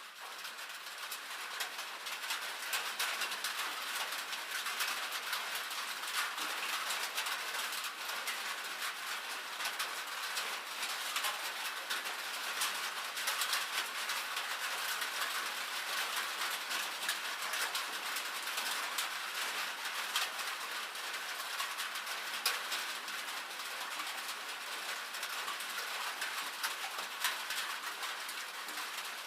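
Rain falling on a tin roof: a dense, steady stream of small drop impacts on the metal sheeting, swelling up over the first couple of seconds and then holding even.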